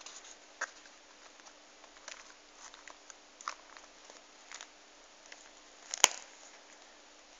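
Leather wallet being handled: soft rustles and small clicks as its compartments are opened and fingered, then one sharp click about six seconds in as the wallet is folded shut.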